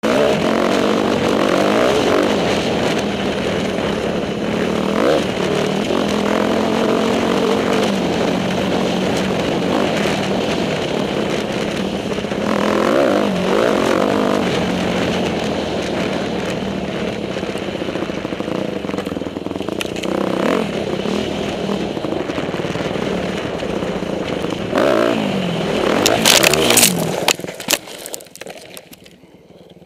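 Dirt bike engine running and revving up and down through the gears on a dirt trail. About 26 seconds in, loud clattering and scraping impacts as the bike whips sideways off a water bar and goes down, then the engine sound falls away.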